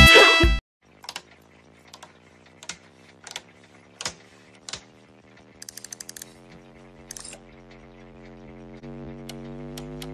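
Loud music cuts off just after the start. Then an autotransformer dial on an equipment panel clicks as it is turned by hand: single clicks about every second, a quick run of ticks midway, and near the end steady ticking about three a second over a faint hum that grows louder.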